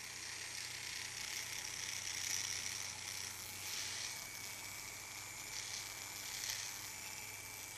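Flexible-shaft rotary carving tool running, its small cutter burring shallow curved channels into wood: a faint steady hum under a hiss that swells several times as the cutter bites.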